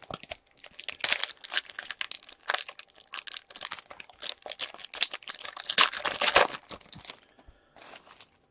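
Wrapper of a hockey card pack being torn open and crinkled: a dense run of crackling that dies down about seven seconds in.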